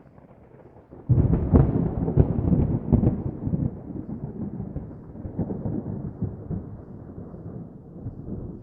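A sudden loud, low rumble with crackles starts about a second in and slowly dies away over several seconds.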